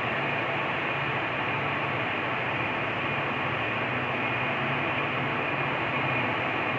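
Steady rush of the river's whitewater rapids, with the low hum of an approaching diesel locomotive's engine underneath.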